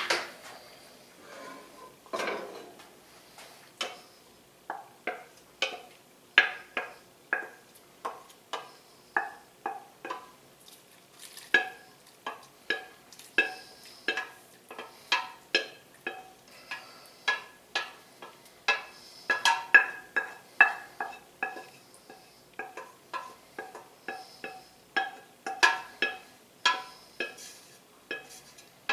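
A utensil knocking and scraping against the inside of a stainless steel pot as it is tipped and emptied, about one or two strokes a second. Each knock sets the pot ringing briefly. The strokes are sparse at first, come steadily from about four seconds in, and are busiest about two-thirds of the way through.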